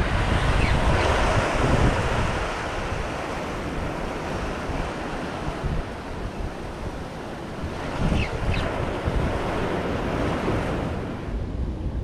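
Sea surf washing and breaking against jetty rocks, with wind buffeting the microphone. The surge is heaviest at the start and swells again about eight seconds in.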